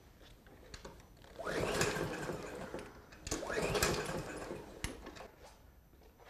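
Two pulls of a Briggs & Stratton OHV lawn mower engine's recoil starter rope, each about a second long, the engine turning over without starting. The spark plug wire is clipped to an inline spark tester, so the engine cannot fire.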